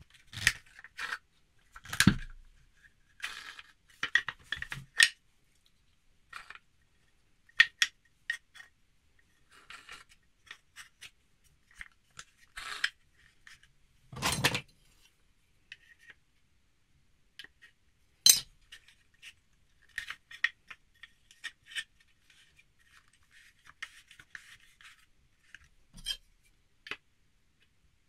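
A wooden screw-arm plane being handled and adjusted on a workbench: scattered knocks, clicks and scrapes of wood on wood. There is a louder thump about two seconds in, another about fourteen seconds in, and a sharp click a few seconds later.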